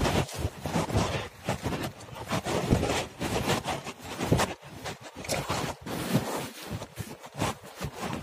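Irregular rustling and scuffing handling noise from a phone that is being carried or held with its lens covered, with many short scrapes and knocks in quick succession.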